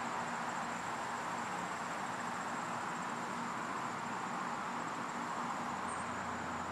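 Steady outdoor background hiss with a constant thin high-pitched tone; the butterflies themselves make no audible sound.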